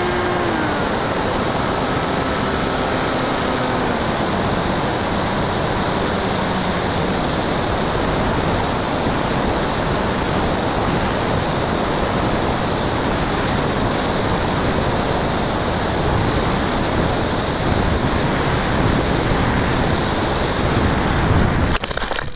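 Airflow rushing over a Bixler 2 RC plane's onboard camera in flight, with a high whine from its brushless motor and propeller; a lower propeller hum fades away over the first several seconds. Near the end the plane touches down in grass, a brief rough scuff, and the rush drops sharply.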